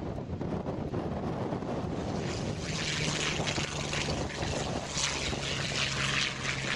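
P-40 Kittyhawk's V-12 engine at takeoff power as the fighter lifts off and passes close by. Its steady drone drops in pitch about four seconds in as it goes past, with gusty wind buffeting the microphone.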